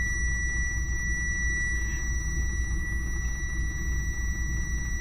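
Mercedes-Benz Actros truck's diesel engine idling, a steady low rumble heard from inside the cab, with a thin steady high-pitched tone running over it.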